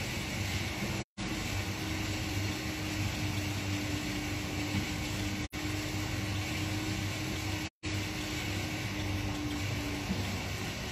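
Steady mechanical whir and hum, with a steady mid-pitched tone through most of it. The sound cuts out completely for an instant three times.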